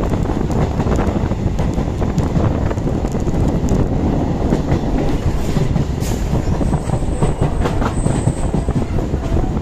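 Local EMU passenger train running at speed, heard from its open doorway: a steady rumble of wheels on the rails with sharp clicks over the rail joints, and wind rushing past the microphone.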